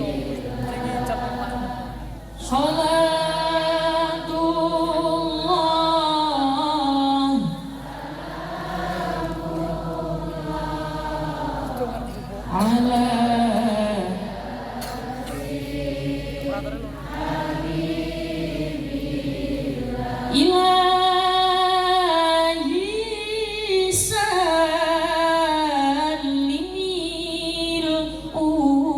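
Sholawat, an Islamic devotional song in praise of the Prophet Muhammad, sung unaccompanied by a woman's lead voice with a congregation singing along in chorus. Long held notes that bend and ornament, in louder and softer phrases, with no beat.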